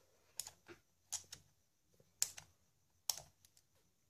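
Sharp little clicks as the RC truck's motor and gearbox assembly is handled and its small hard parts knock together: four double clicks, about a second apart.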